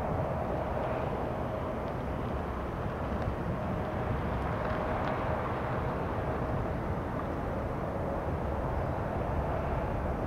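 Jet engines of an Airbus A330-300 airliner, a steady rushing noise with a faint steady tone running through it.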